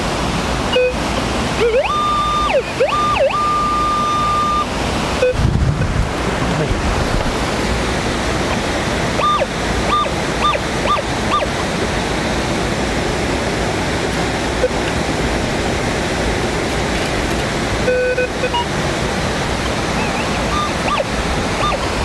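Steady rush of stream water at a waterfall, with a Minelab Vanquish metal detector beeping as its coil sweeps the stream bed: a long high beep about two seconds in, a quick run of short high beeps around ten seconds in, and a lower tone near the end.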